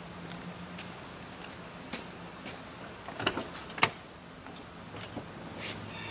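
Footsteps on a concrete driveway, then the sharp click of a GMC pickup's door latch about four seconds in as the driver's door is pulled open, over a faint steady low hum.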